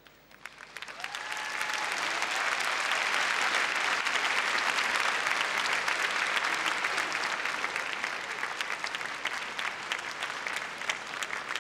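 Arena audience applauding: the clapping swells over the first two seconds, holds steady, then thins toward the end into scattered separate claps.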